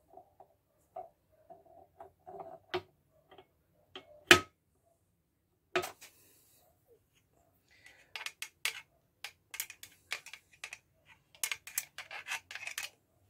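Small metal parts and tools clicking and tapping as a motorcycle engine is assembled and oiled on the bench, with one sharper knock about four seconds in and a quick run of clicks in the second half.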